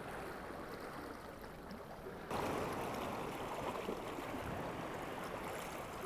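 A battery air pump's tube bubbling into a bucket of sea water. About two seconds in it gives way to a louder, steady wash of sea noise.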